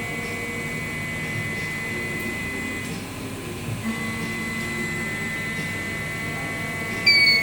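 A steady high-pitched electronic whine over a low mechanical hum, then one short, sharp beep near the end.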